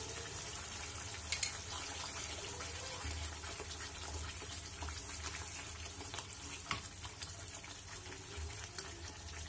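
Thick tomato gravy with paneer sizzling and simmering gently in a pan on low heat, a steady soft hiss. A spoon clinks sharply a few times, loudest about a second and a half in and again near seven seconds, as cream is spooned in.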